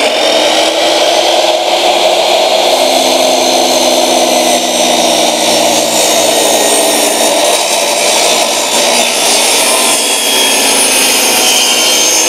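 10-inch sliding miter saw (TNT TSC-1018L) running at full speed, its blade cutting a long crosscut through a wide wooden board as the head is pushed all the way along its slide rails. The motor whine is steady, with the rasp of the blade in the wood.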